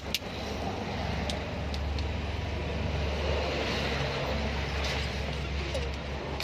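A few sharp metallic clicks from a click-type torque wrench as cylinder head bolts are tightened, over a steady low machine rumble.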